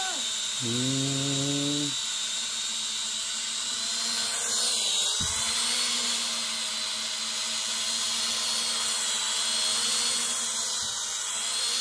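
Small quadcopter drone hovering overhead, its propellers giving a steady high whine.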